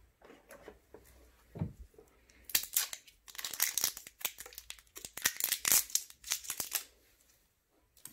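Plastic wrapping being torn open and crinkled by hand, a run of crackling that lasts about four seconds, after a soft thump about a second and a half in.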